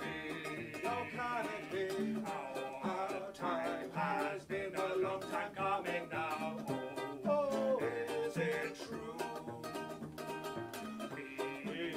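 Live acoustic music: a ukulele strummed briskly with a cello playing underneath.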